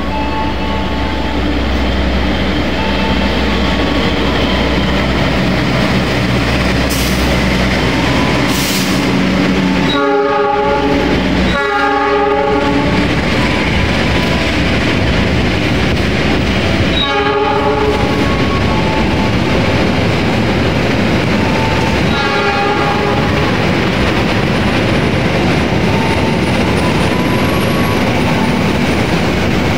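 Passenger train running through the station with a steady rumble, and the locomotive's horn sounding four short blasts: two close together about ten seconds in, one near the middle and a fainter one a few seconds later.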